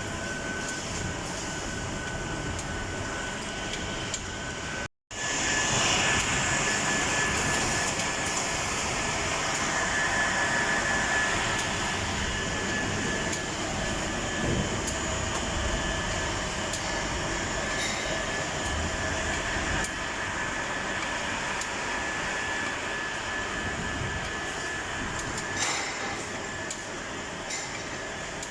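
Automatic film cutting-and-sealing and heat-shrink wrapping machine running, a steady mechanical noise with a thin high tone over it. The sound cuts out for a moment about five seconds in, then resumes slightly louder.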